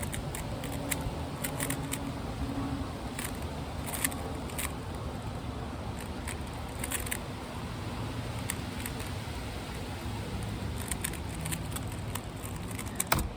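Rubik's cube being turned rapidly in a speed-solve: a run of quick, irregular plastic clicks, with one heavier knock near the end, over steady wind noise on the microphone.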